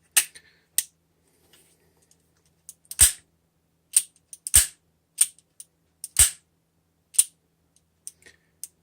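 Ruger LCR .38 Special revolver being dry-fired through its double-action trigger: a series of sharp metallic clicks as the cylinder locks in place and the concealed hammer falls, with three louder snaps about a second and a half apart.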